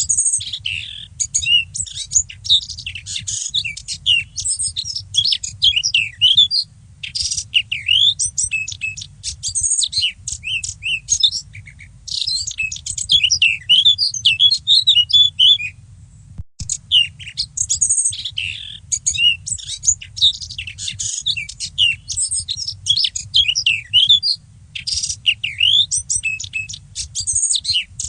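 A warbler (fauvette) singing: long runs of rapid, varied high chirps and trills broken by short pauses, over a faint steady low rumble.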